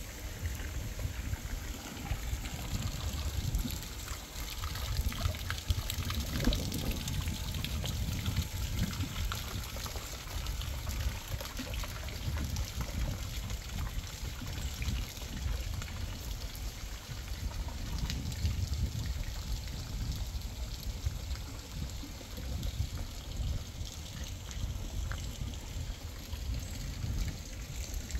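Water trickling and pouring into a garden fountain's pond, with gusts of wind rumbling on the microphone.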